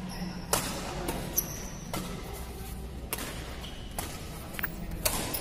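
Badminton rally: rackets striking the shuttlecock in about six sharp hits roughly a second apart, with short high squeaks of sneakers on the court floor in between.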